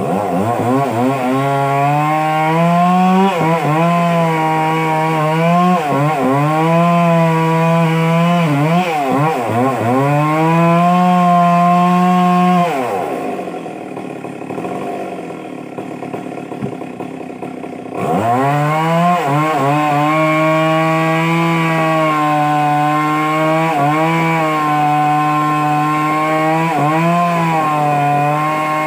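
Stihl chainsaw running at full throttle while cutting into a large log, its pitch sagging briefly every few seconds as the chain bogs in the wood. About twelve seconds in it drops back to a low idle for about five seconds, then revs up sharply and cuts steadily again.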